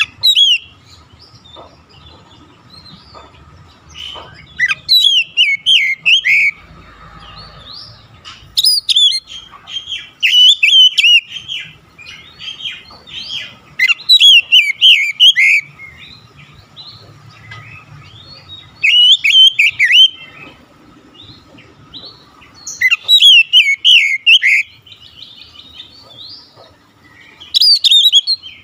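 Male Oriental magpie-robin singing: loud phrases of rapid, varied whistled and warbled notes, about seven of them, each a second or two long, with short pauses between.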